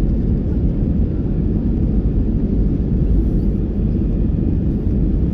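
Steady low rumble of an Airbus A319's CFM56 jet engines and airflow heard inside the passenger cabin during the climb after takeoff.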